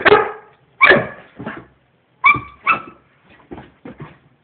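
Dog barking at its own reflection in a mirror: a string of short sharp barks, the last few quieter.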